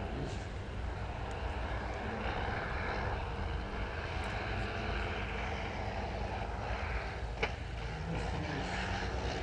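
Piston engines of three WWI-type biplanes flying overhead in formation, a steady propeller drone. A single sharp click about seven seconds in.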